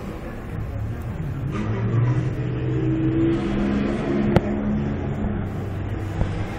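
A passing motor vehicle's engine running, growing louder about a second and a half in, holding through the middle and fading near the end, with one sharp click partway through.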